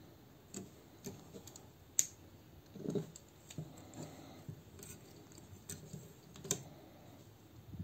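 Plastic parts of a small transforming robot toy being handled and pressed together as a shoulder piece is slid into its slot and pegged in: a scatter of light clicks and soft bumps, the sharpest click about two seconds in and another near the end.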